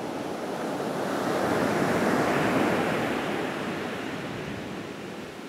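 Ocean surf: a wave breaking and crashing, its rush swelling to a peak about two seconds in and then fading away.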